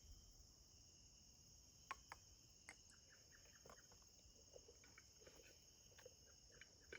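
Quiet, steady high-pitched chirring of crickets, with a few faint short clicks and taps.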